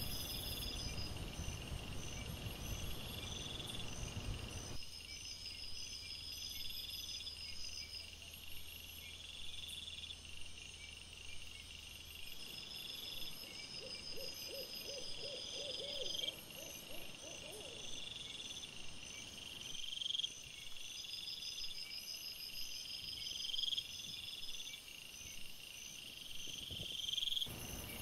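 Night-time insects chirping in a repeating pattern: a rising trill about every two seconds over steadier, higher pulse trains. About halfway through comes a short run of lower, rapid pulses.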